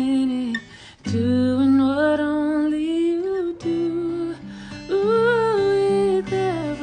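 Acoustic guitar played with a man singing a slow melody over it in long, held, sliding notes, with a short break about a second in.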